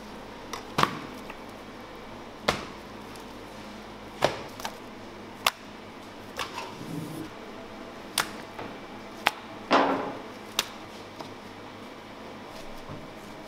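A series of sharp, irregularly spaced knocks, about one to two seconds apart, over a steady background hum. The loudest come about a second in and near ten seconds. They stop about eleven seconds in.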